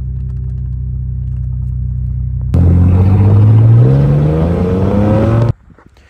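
Mercedes-Benz car engine heard from inside the cabin, first running steadily at low revs, then accelerating with its pitch rising for a few seconds. It cuts off suddenly near the end.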